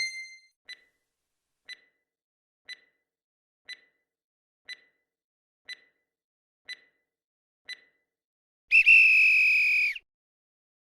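Quiz countdown-timer sound effect: eight soft ticks, one a second, then a loud, high electronic tone lasting just over a second that cuts off sharply, marking that the answer time is up.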